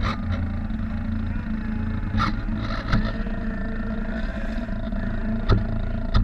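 Model lobster boat's small motor running steadily with a low hum and a faint steady whine as it moves across the water. A few sharp knocks come through along the way.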